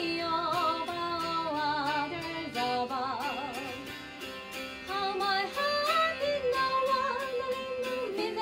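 A woman singing with a wavering vibrato over a strummed three-course mountain dulcimer, the strums keeping an even beat under the melody.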